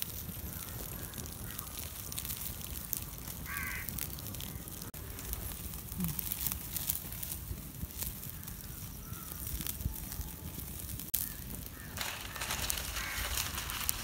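Open wood fire crackling with many small pops, with a crow cawing briefly a few seconds in and again near the end.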